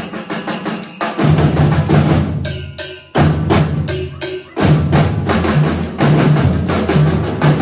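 Batucada percussion ensemble playing a driving samba rhythm on drums and hand percussion. About two and a half seconds in the full sound drops away for a moment, leaving a few sparse pitched strokes, and the whole ensemble comes back in near the middle.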